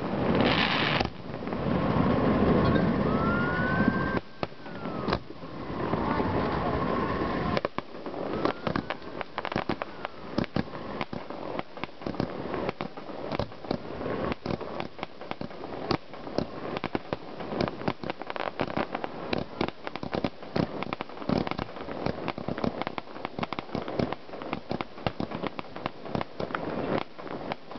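An aerial fireworks display going off. For the first few seconds it is loud and dense, with a few rising and falling whistles. From about eight seconds in it becomes a continuous crackle of many rapid small pops.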